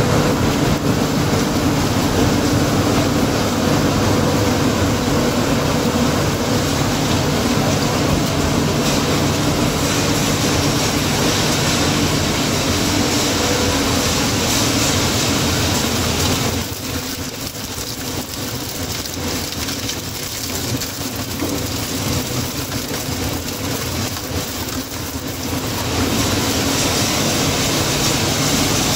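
PCB crushing and sorting line running: a steady mechanical din of conveyor, crusher and fans with a constant hum, dipping quieter for several seconds past the middle before coming back up.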